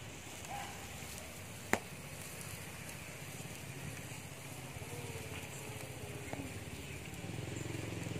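Soup boiling in an aluminium wok over an open wood fire: a steady low rumble and hiss, with one sharp click about two seconds in.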